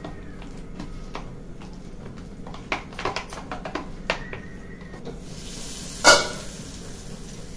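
Hands squishing and mixing gram-flour batter in a steel bowl, with many small clicks against the metal. About five seconds in, potato slices start sizzling in hot oil in a frying pan, and a loud clang of a steel pan lid on the counter comes a second later.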